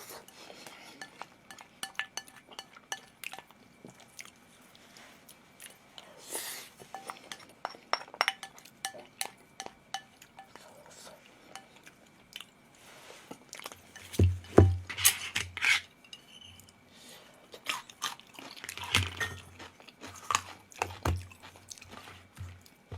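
Someone eating: chewing, with clinks of chopsticks or spoon against a bowl and dishes, a steady run of small clicks and knocks. A few heavier knocks come in the second half.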